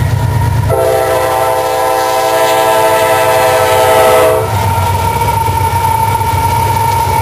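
A CSX freight train's locomotive air horn sounds one long chord of several notes, starting about a second in and cutting off sharply about four seconds in, over the low rumble of the diesel locomotives and rolling cars. After the horn stops, the locomotives rumble past the grade crossing with a steady high ringing tone from the crossing bell.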